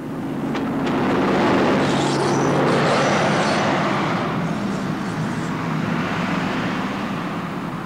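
A train moving past: a steady low engine hum under wheel and rail noise that swells over the first second, then slowly fades. A faint high squeal comes in about two to three seconds in.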